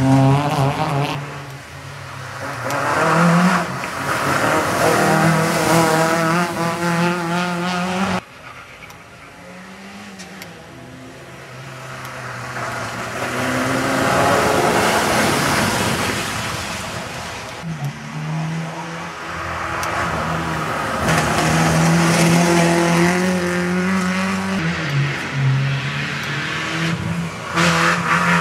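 Small rally hatchbacks' engines revving hard, pitch climbing and falling with each gear change as several cars pass in turn. About 8 seconds in the sound drops off abruptly, then builds again as the next car approaches and passes at full throttle.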